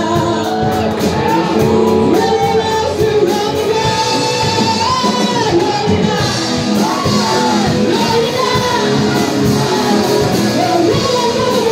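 A rock band playing live, with a lead vocal singing over electric guitars, bass, drums and keyboard; cymbal strokes keep a steady beat.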